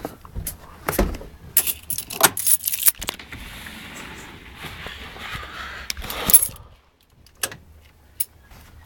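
A series of clicks, knocks and rattles, then a steady hiss for about three seconds that ends in a loud knock, followed by a few faint clicks.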